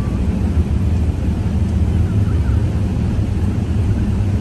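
Steady low rumble of automatic car wash machinery, heard through the closed cabin of a car waiting in the wash tunnel.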